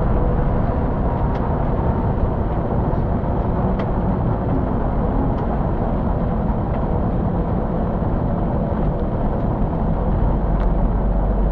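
City bus driving along at speed, its engine and road noise heard from inside the cabin, with a few faint ticks.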